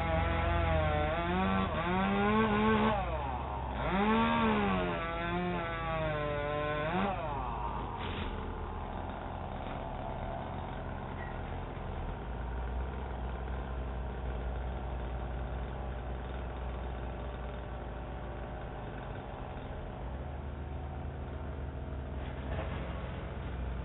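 Two-stroke chainsaw revving up and down several times, its pitch rising and falling, heard through a doorbell camera's microphone. After about seven seconds it gives way to a steady low engine rumble.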